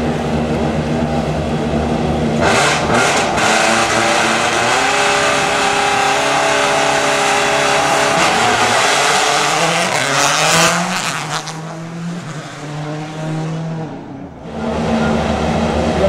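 A World Rally Car's turbocharged four-cylinder engine at full throttle, rising and falling in pitch through gear changes. It comes in suddenly about two seconds in, stays loud for about eight seconds, then fades. Before it, and again near the end, a rally car engine idles steadily.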